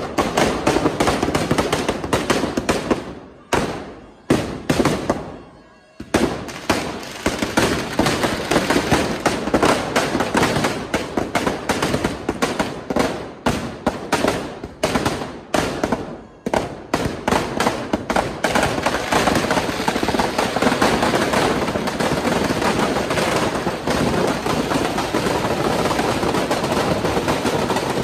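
Firecrackers packed inside a burning Ravan effigy going off in rapid strings of cracks. There is a short lull with a few separate bursts a few seconds in, and from about two-thirds of the way through the crackle runs on dense and unbroken as the fire takes hold of the effigy.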